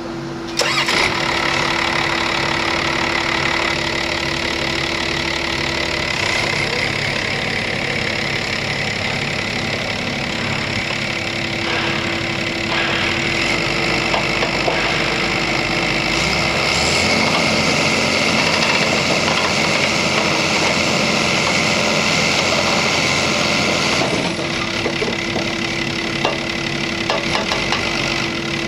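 Diesel engine of a crawler-mounted earth drill rig running, stepping up louder about half a second in, its note shifting several times as the machine is worked.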